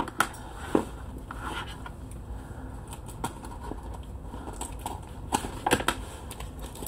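Scattered sharp clicks and light handling noise of a large mailed envelope being opened, over a low steady hum.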